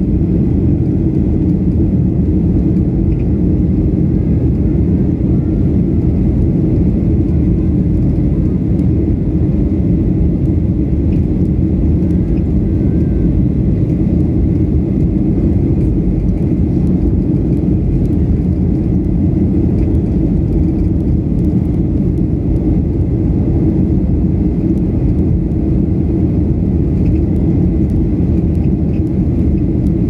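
Steady low rumble of airliner cabin noise during the climb after takeoff, heard from a window seat, unchanging throughout.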